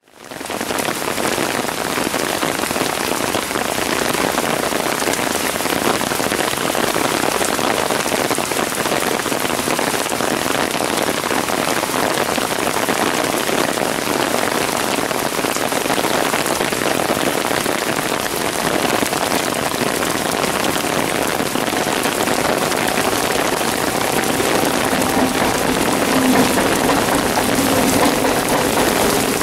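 Torrential rain pouring down on the tracks and ballast, a steady, dense hiss. From about two-thirds of the way in, faint humming tones rise under the rain and grow near the end as an electric multiple-unit local train passes close by.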